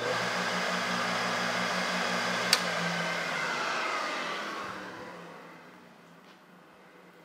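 MAG-8200 lawn mower blade sharpener's electric motor and belt-driven grinding wheel running on a test spin with its newly installed bearing spindle. A sharp click comes about two and a half seconds in, then the motor and wheel wind down, the whine falling in pitch and fading over the next few seconds.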